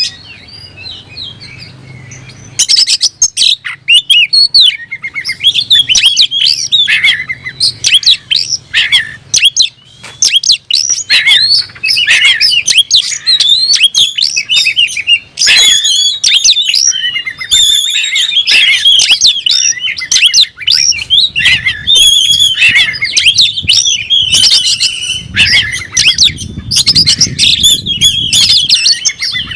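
Oriental magpie-robin (kacer) singing a loud, fast, varied song of whistles, chirps and trills with hardly a pause. This is the full 'gacor' challenge song of a male in fighting mood, looking for a rival. The song starts after a brief lull of about two seconds.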